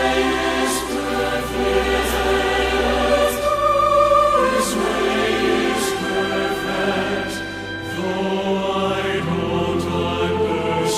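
Background choral music: sung sustained chords that change every second or two, with a light regular beat.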